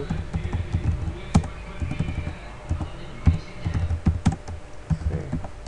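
Typing on a computer keyboard: irregular keystrokes with short pauses between them.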